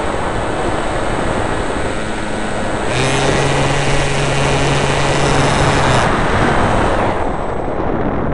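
Rushing wind over an RC plane's on-board camera, mixed with the steady drone of its motor and propeller. A low steady tone comes in about three seconds in and drops out about three seconds later. The rush eases near the end, as the plane settles on the grass.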